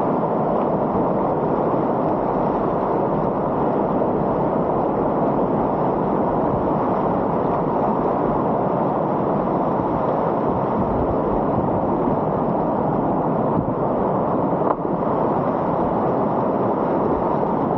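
Steady rushing roar of whitewater rapids at high water, heard close up from a kayak on the river.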